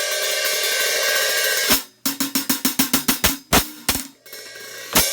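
A pair of 13-inch Zildjian K Custom Dark hi-hats being played, the top cymbal cracked. They ring open in a sustained wash that is choked shut after nearly two seconds, then a run of quick, crisp strokes at about six a second follows, with a brief lull and a few more strokes near the end.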